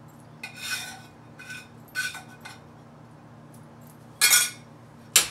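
Spatula scraping cooked ground beef out of a frying pan: several short scrapes, then a louder scrape near the end and a sharp knock.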